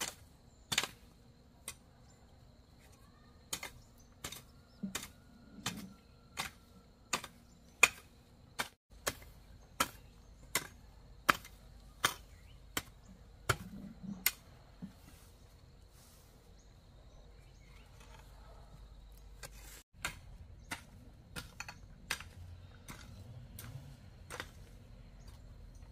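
A run of sharp knocks, about one or two a second. They pause for several seconds past the middle and pick up again for a few strikes near the end.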